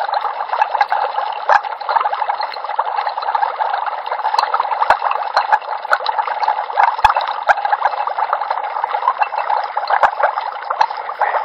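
Liquid bubbling and gurgling steadily, a dense run of small pops.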